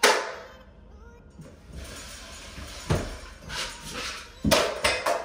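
A sharp metallic knock that rings briefly, then scraping and a few knocks and thumps near the end, from drywall-finishing work: a taping knife against a mud pan and feet and handling on an aluminium stepladder.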